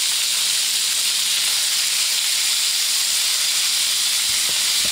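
Chopped onion, celery and green pepper sizzling steadily in hot oil in a cast-iron skillet as they sauté.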